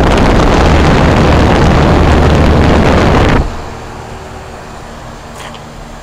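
Discharge air from the condenser fan of a 1983 General Electric Executive Weathertron heat pump, running in cool mode, buffeting the microphone held over its top grille: a loud rush that cuts off about three and a half seconds in. After that, the unit's steady hum with several steady tones.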